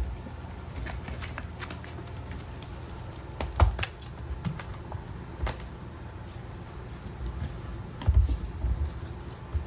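Mame shiba puppies playing with toys: scattered light clicks and taps, with heavier thumps about three and a half seconds in and again around eight seconds.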